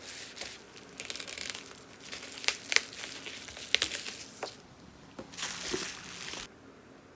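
Plastic packaging crinkling and rustling in bursts, with a few sharp clicks in the middle; it stops near the end.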